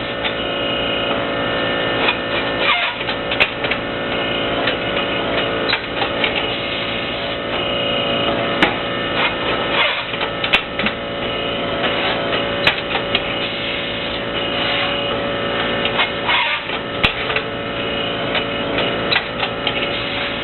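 A 1-25 interlocking brick-making machine running: a steady machine hum with irregular sharp metallic knocks and clatter.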